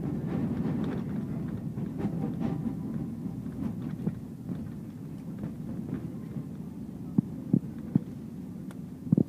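Cabin rumble of an airliner rolling on the runway after touchdown, a steady low noise that slowly fades as the aircraft slows. A few sharp knocks come near the end.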